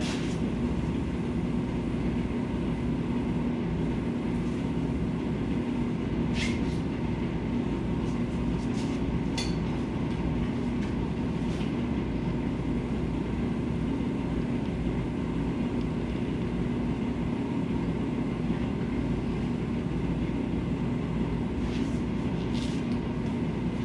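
Steady hum and whoosh of an electric blower fan running while a handheld powder coating gun sprays powder onto a part, with a few faint clicks along the way.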